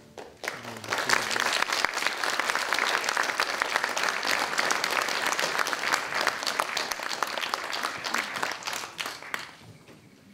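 Audience applauding: dense clapping that swells within the first second, holds steady for several seconds, and dies away near the end.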